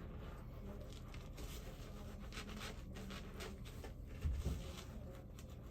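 Shaving brush working lather over the face, a run of brisk wet swishes, with one low thump a little over four seconds in.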